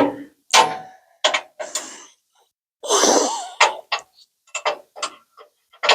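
Short breathy vocal sounds, the loudest about three seconds in, mixed with several small metallic clicks and clinks from a wrench being fitted to the nuts of a truck's bumper bolts.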